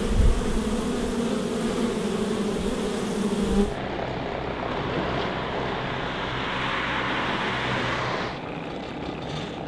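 Honeybees buzzing steadily in a dense swarm, with a low thump right at the start. The buzz cuts off about four seconds in, leaving a steady rushing noise that drops away near the end.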